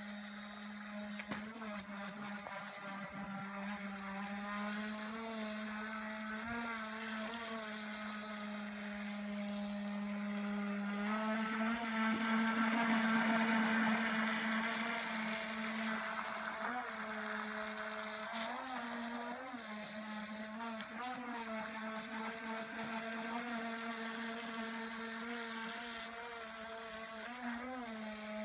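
Electric motor of a 1/12-scale radio-controlled Bluebird K3 model hydroplane whining steadily as the boat runs on the water, its pitch wavering up and down. It is loudest about halfway through, as the boat passes close by.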